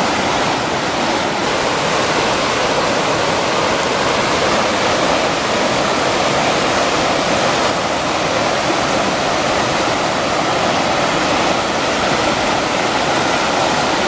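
Waterfall pouring: a steady, unbroken rush of falling water.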